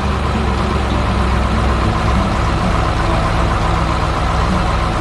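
A heavy truck engine running steadily: the tow truck's engine sound effect in an animation.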